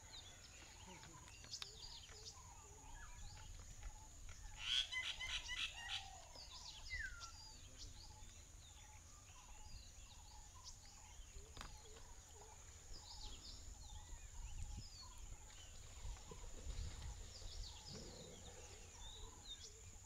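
Open-country bird calls: many short chirps and whistles throughout, over a steady high-pitched whine. About five seconds in, one louder rapid chattering call of about eight quick notes.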